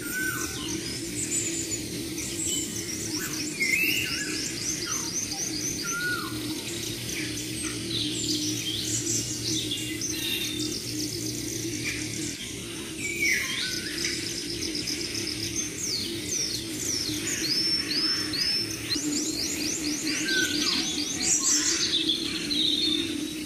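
Several birds chirping and calling at once: rapid trills and short whistled notes that slide up or down, overlapping one another.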